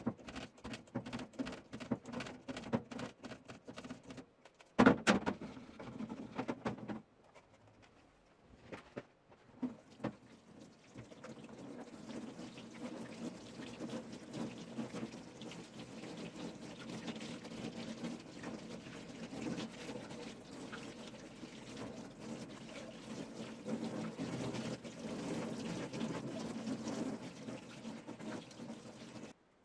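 Water running steadily from a tap and splashing, as dehumidifier parts are washed. Before it come a run of quick clicks and knocks of handling and one loud knock. The water cuts off suddenly near the end.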